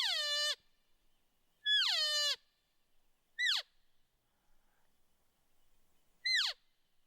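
Cow elk mews: four high calls, each sliding down in pitch. The first two, at the start and about two seconds in, last over half a second; the two later ones are short chirps.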